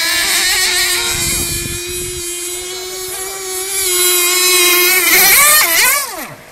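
Radio-controlled racing boats running flat out on the water, a loud high-pitched motor whine that grows louder as a boat comes close, then falls steeply in pitch and dies away shortly before the end.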